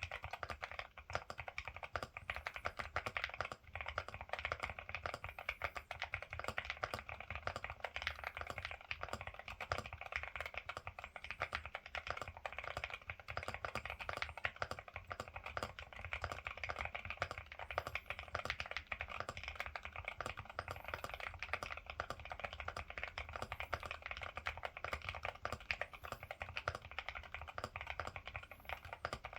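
Continuous fast typing on a Ciddo V65 V2 mechanical keyboard fitted with Akko Rosewood linear switches: a dense, unbroken stream of key clacks.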